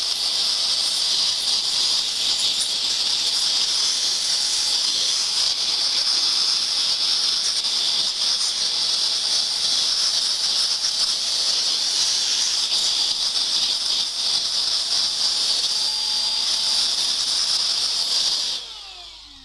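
Handheld electric dust cleaner running with a steady, high, airy hiss as it clears dust off a computer motherboard; it switches off about a second before the end.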